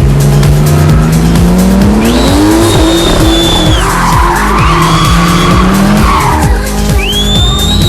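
Electronic dance music with a steady beat, carrying long sweeping sounds: a low tone gliding upward, and high held tones that rise and fall away, twice.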